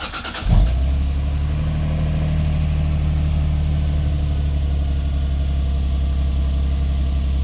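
Lexus IS300's 2JZ-GE inline-six, with freshly fitted Brian Crower camshafts, cranking briefly on the starter and catching about half a second in with a quick flare of revs, then idling steadily. This is the engine's first start after the cam swap, and it fires straight away.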